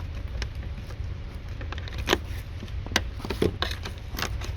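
A few sharp plastic clicks and light scrapes as the car's plastic bumper clips and fasteners are worked with a screwdriver, over a steady low rumble.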